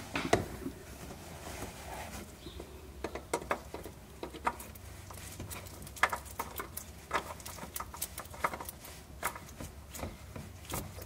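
Twin-power magnetic oil filter being screwed on by hand onto its threaded mount: scattered light clicks and rubbing of hand and canister against the mount as it is turned until hand tight, over a low steady hum.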